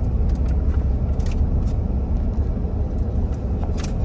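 Steady low rumble of a slowly moving vehicle, with a few light clicks about a second in and again near the end.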